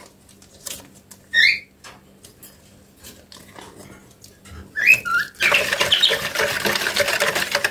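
A wire whisk beating milk and crumbled yeast in a plastic bowl, starting about five and a half seconds in as a fast, continuous run of strokes. Before that it is mostly quiet, with a couple of short, high chirps.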